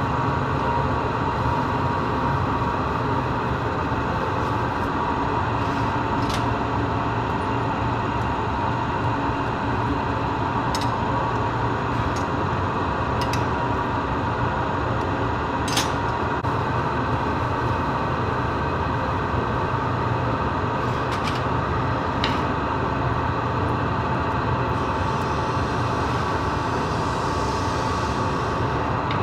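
Steady roar of glass-furnace burners and blowers, with a few sharp clicks of metal glassworking tools against the hot glass or the bench.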